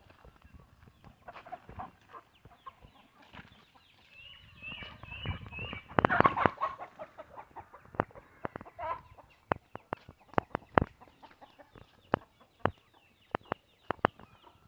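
Chickens clucking, loudest about six seconds in, with a quick run of high chirps just before. Footsteps crunch on a dirt path littered with dry twigs and leaves, as a string of sharp clicks.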